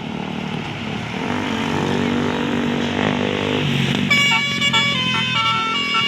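Tour bus coming closer, engine getting louder, then about four seconds in its Basuri telolet horn starts: a multi-tone horn playing a quick stepped melody of high notes.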